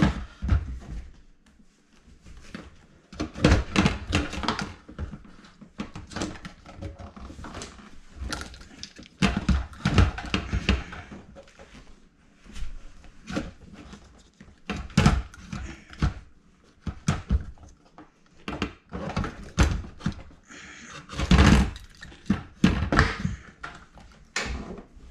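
Dishwasher pump and motor assembly being worked into the plastic sump at the base of the tub: a run of irregular plastic knocks, clunks and rattles as it is wiggled into place.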